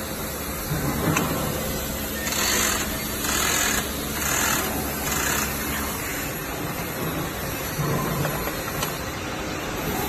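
Semi-automatic liquid capsule filling machine running, with a steady low hum and four short hisses about a second apart a couple of seconds in.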